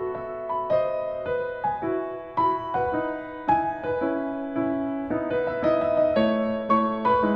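Background piano music: a gentle melody of single struck notes over a broken-chord accompaniment.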